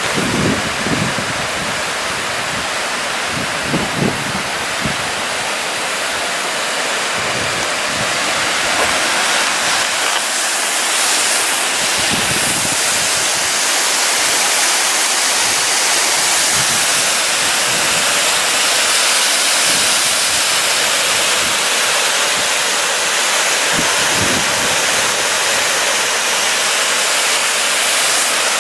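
Steady rush and hiss of a tall fountain jet's spray falling and water cascading down a rock face, growing a little louder about ten seconds in.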